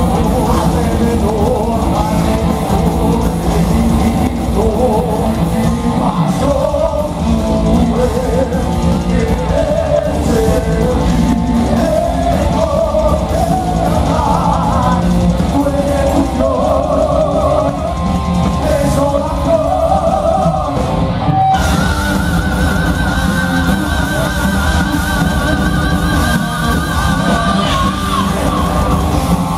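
Heavy metal band playing live and loud: male voices singing over distorted electric guitar, bass and drums. About two-thirds of the way in, the sound changes suddenly to a held, wavering high note over the band.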